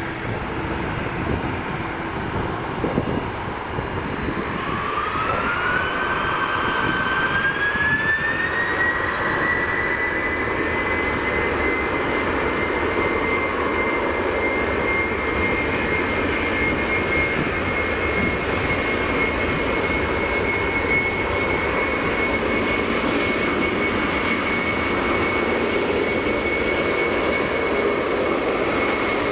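Boeing 747 freighter's jet engines spooling up to takeoff thrust. A whine rises about five seconds in and levels off after a few seconds into a steady high whine over a loud rumble.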